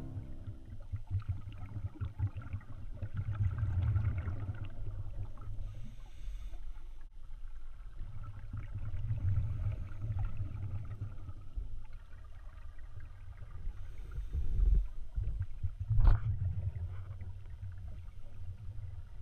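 Underwater sound picked up by a camera in its housing: low rumbling water noise with fine crackling that swells and fades every few seconds, and one sharp click about sixteen seconds in.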